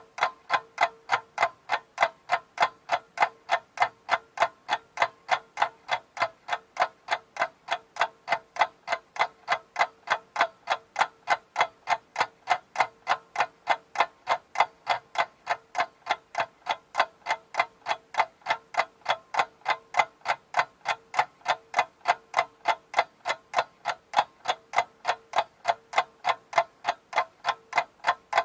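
Grandfather clock ticking: sharp, evenly spaced ticks from its escapement, keeping a steady rhythm without a break.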